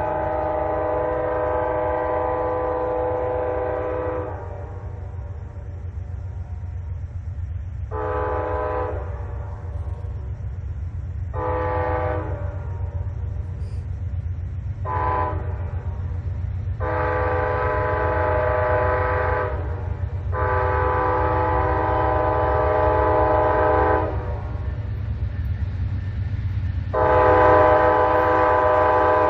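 An approaching diesel locomotive sounding its multi-chime air horn in a series of blasts: a long one at the start, three shorter ones, then three long ones, over a steady low rumble of the train. The horn and rumble grow louder as the train comes closer.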